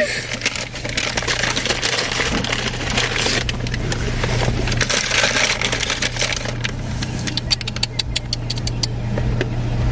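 Car idling with a steady low hum, under rustling and rattling noise, with a quick run of sharp clicks about seven to nine seconds in.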